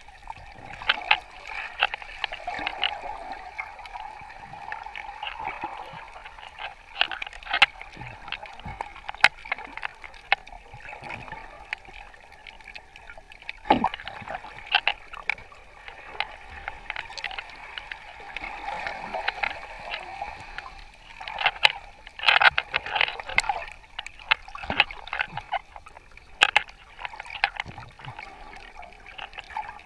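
Water gurgling and sloshing around a snorkeler, broken by many sharp clicks and crackles.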